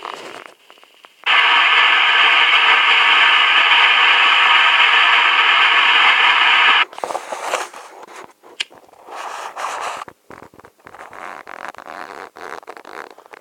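A firework spraying sparks with a loud, steady hiss for about five seconds, starting and cutting off sharply, followed by scattered small crackles and pops.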